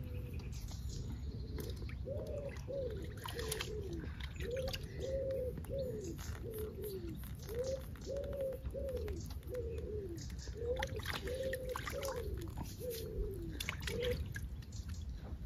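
A pigeon cooing in repeated phrases of four or five soft coos, one phrase after another, starting about two seconds in.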